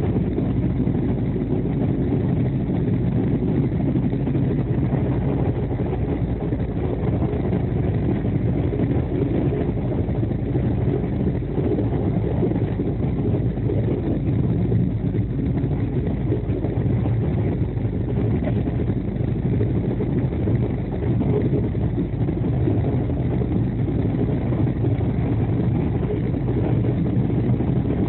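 Steady low rumble of the Sealdah–New Delhi Duronto Express running at speed, heard from inside the passenger coach.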